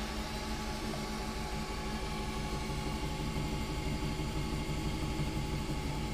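Ultimaker 2 3D printer running a print: its stepper motors whine in several steady tones over the hum and hiss of its cooling fans.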